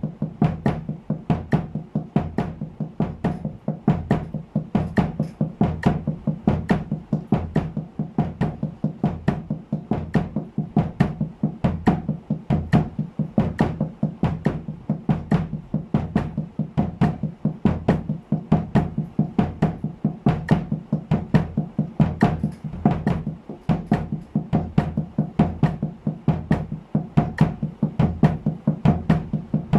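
Snare drum damped with a cloth, played with wooden drumsticks in a steady sixteenth-note double-stroke pattern at 70 beats per minute, with bass drum kicks on the last two sixteenth notes of each beat.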